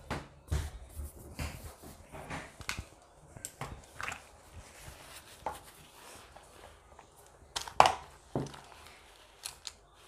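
Scattered clicks, knocks and rustles of makeup things being handled: an eyeshadow palette is set down and brushes are rummaged for in a cosmetics pouch. The loudest knock comes about two seconds before the end.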